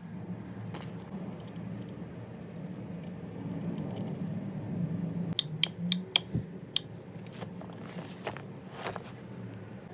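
Small metal tools and parts being handled on a workbench: a quick run of sharp metallic clicks and clinks about halfway through, a few more near the end, over a low steady hum.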